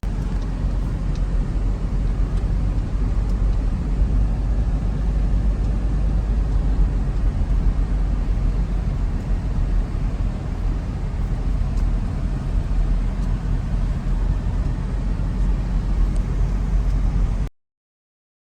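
Steady low rumble of a moving vehicle, heavy with wind buffeting the microphone. It cuts off suddenly about a second before the end.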